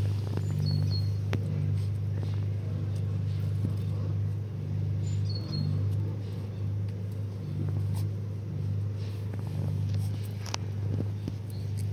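A steady low hum, with a few light taps and clicks and two short high chirps, the first under a second in and the second about five and a half seconds in.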